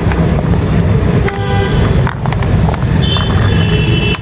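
Street traffic: a steady low rumble of passing vehicles, with horns honking in several stretches of a second or so.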